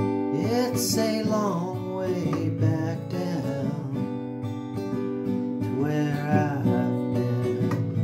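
Acoustic guitar strummed in chords, with a man's voice singing over it in two phrases.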